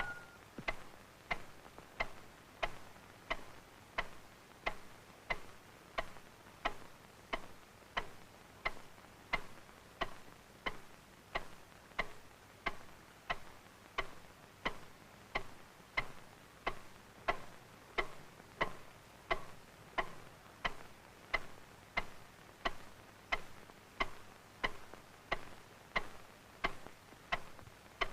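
Clock ticking steadily, about three ticks every two seconds.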